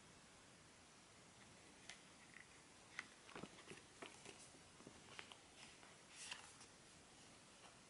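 Faint handling of paper and cardboard packaging: the paper documentation envelope of an iPhone box lifted out and opened, giving scattered soft taps and short rustles from about two seconds in, with a brief papery rustle a little after six seconds.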